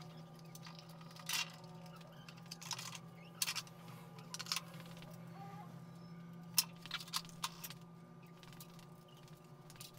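Scattered sharp clicks and knocks of tools and parts being handled on a motorcycle's fairing, over a steady low hum.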